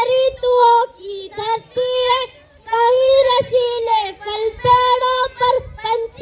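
A boy singing alone into a microphone over a PA system, in held, high-pitched phrases with short breaks between them.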